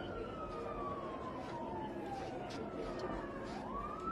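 Emergency-vehicle siren wailing: one slow downward glide over the first two and a half seconds, then a quick rise again near the end, over steady street noise.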